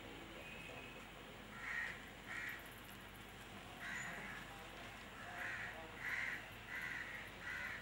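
A crow cawing repeatedly: about seven short calls, irregularly spaced, some in quick pairs.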